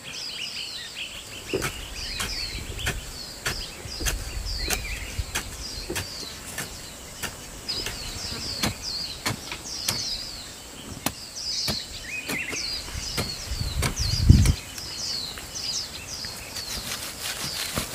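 Small birds chirping over and over in short, quick falling notes, with scattered sharp clicks throughout and a low thump about three-quarters of the way through.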